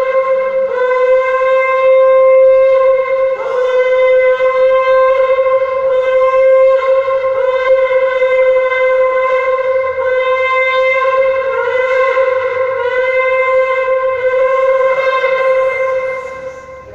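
A shofar (ram's-horn trumpet) sounding a long, steady blast at one pitch, dipping briefly about three and a half seconds in and then held on, fading out near the end.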